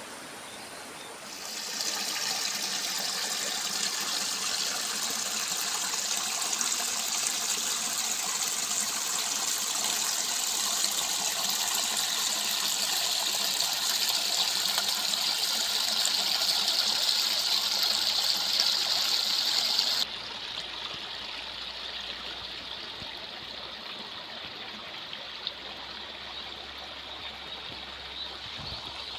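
Running water from a small stream, a steady rush that gets louder a second or two in and then drops suddenly to a quieter, duller rush about twenty seconds in.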